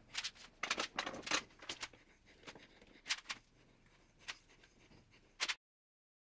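Bristle brush spreading and dabbing Citristrip paint-stripping gel over the painted wooden sides of a box, a series of short strokes at irregular intervals. The sound cuts off suddenly about five and a half seconds in.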